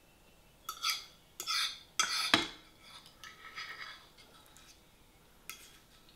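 Metal fork scraping and clinking against a dinner plate as food is gathered up. A few quick scrapes come in the first few seconds, the loudest with a sharp knock about two seconds in, then a single clink near the end.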